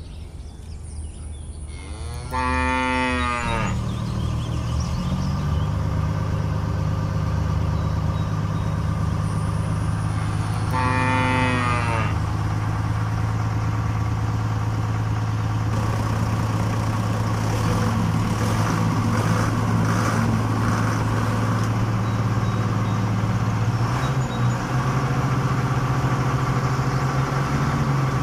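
A cow moos twice, about two seconds in and again about eleven seconds in. From a few seconds in, a vehicle engine runs steadily underneath, its pitch stepping up slightly near the end.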